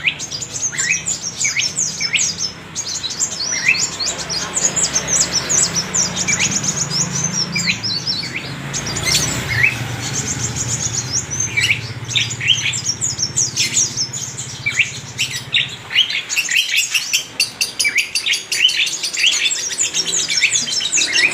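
Sunbird (kolibri wulung) singing: a fast, high-pitched twittering song of quick chirps and trilled runs that becomes denser toward the end.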